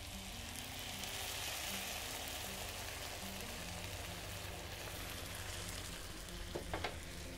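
Crushed tomato sizzling steadily in a hot frying pan of onion and green pepper fried in olive oil and butter, as more tomato is poured in. Two light taps near the end.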